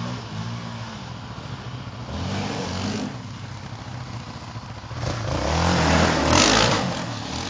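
Yamaha Raptor sport ATV engine revving as the quad rides along, rising in pitch around two seconds in. It then passes close by, loudest between about six and seven seconds in, and fades away.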